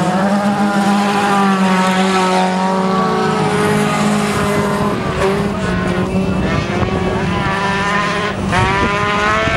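Folkrace cars' engines revving hard as they race round the track, several engine notes rising and falling as they accelerate and shift, with one climbing in pitch near the end.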